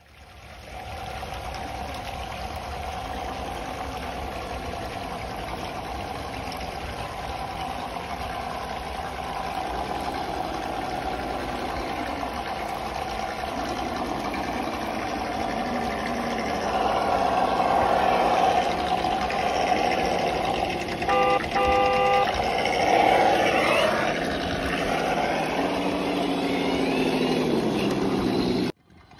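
Simulated V8 engine sound from the ESS speaker sound modules in 1/10-scale RC crawlers, running steadily and rising in revs as they climb. It grows louder over the second half, with two short beeps a little after the midpoint and the revs falling away near the end.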